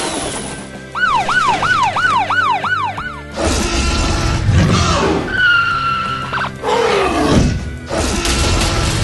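A cartoon police siren sound effect wailing up and down quickly, about three times a second, for about two seconds. It gives way to loud noisy whooshing effects, with a held whistle and then a falling whistle a few seconds later.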